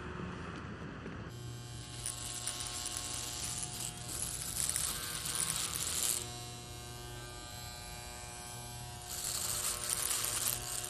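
Electric hair clipper buzzing with a steady motor hum as it shaves hair from a head, starting about a second in. A raspy cutting hiss rises over the hum while the blade runs through the hair, eases off in the middle and picks up again near the end.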